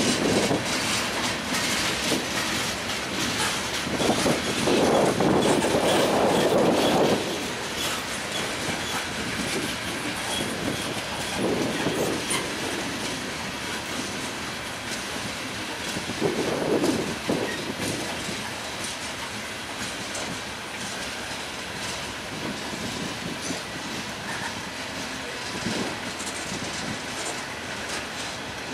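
Freight cars of a passing train rolling by, with wheels clicking over the rail joints. It is loudest about 4 to 7 seconds in, swells briefly twice more, and is a little quieter in the second half as gondolas and boxcars give way to a covered hopper and centerbeam lumber flatcars.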